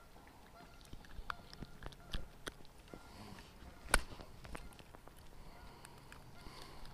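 Faint scattered clicks and rustles of hands handling a freshly landed small fish and fishing tackle, with one sharper click about four seconds in.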